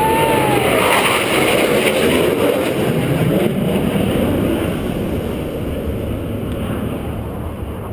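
Roar of a Blue Angels F/A-18 Hornet jet flying past, loud for the first few seconds and then slowly fading as it moves away. A brief whistling tone rises and falls at the very start.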